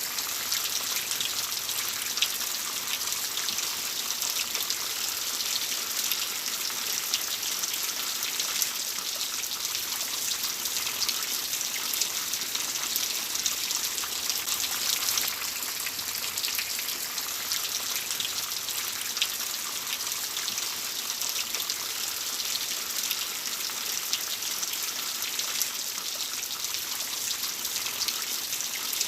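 Steady rain falling, with a constant hiss and many small drop ticks on a hard surface.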